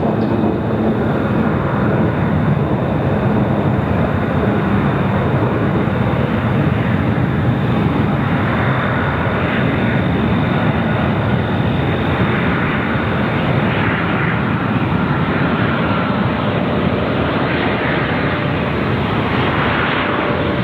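Jet airliner engines running, a steady loud noise with a faint high whine.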